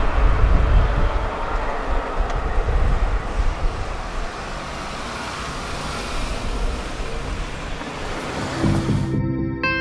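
Outdoor traffic and rail noise at a level crossing: a steady rumble, heaviest in the first couple of seconds, with a car driving over the crossing near the end. Guitar music cuts in just before the end.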